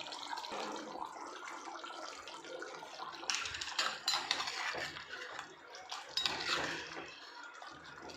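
A spoon stirring and scraping thick chicken gravy in a clay pot, with a few knocks against the pot about midway and again later, over a steady hiss from the gravy cooking.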